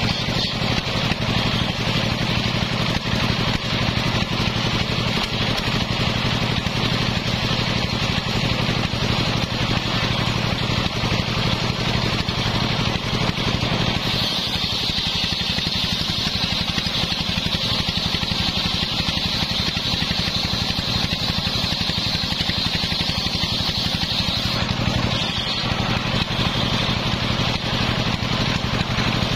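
Homemade circular saw bench running steadily, its large blade ripping sengon logs lengthwise into boards over a continuous low motor hum. The high cutting hiss grows louder about halfway through and eases briefly a few seconds before the end.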